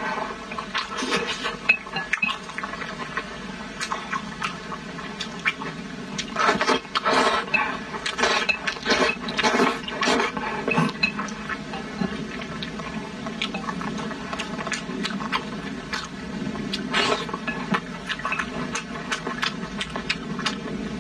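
Close-miked slurping of saucy glass noodles with wet chewing and lip-smacking, in irregular bursts that come thickest in the first half.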